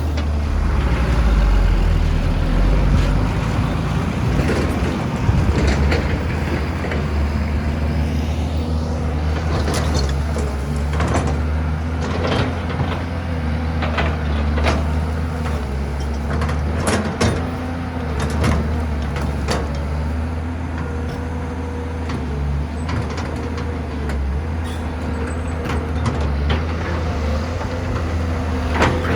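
Heavy diesel engines of an excavator and dump truck running steadily while working, with scattered sharp knocks and clanks throughout.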